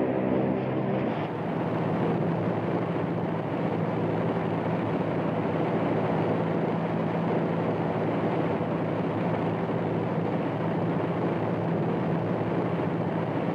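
Propeller aircraft engines droning. At first an evenly pitched hum, changing about a second in to a steadier rushing engine-and-air noise with a low hum beneath it.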